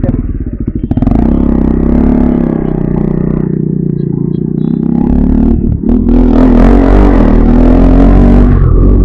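Motorcycle engine pulling away and accelerating, its note dipping briefly a little past halfway and then climbing again, with wind noise rising on the microphone in the second half.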